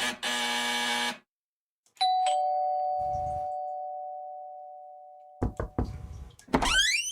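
Two-note ding-dong doorbell chime sound effect, the second note lower, ringing out and fading over about three seconds. Just before it, a buzzy ringtone cuts off. Near the end come a few knocks and a loud squeak that rises and falls in pitch.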